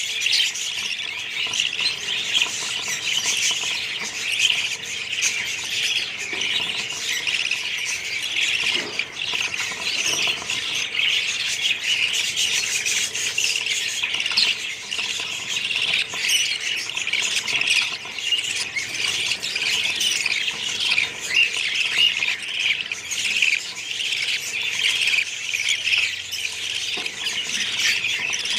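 A colony of budgerigars chattering together: a dense, unbroken mix of many overlapping high calls.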